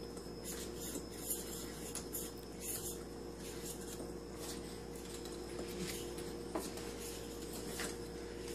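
Wire whisks scraping and clicking against a metal mixing bowl as pancake batter is stirred, in quick irregular strokes.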